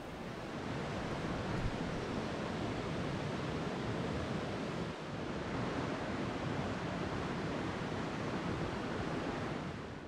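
Steady rushing of a fast-flowing river, an even noise with no pauses, with some wind on the microphone.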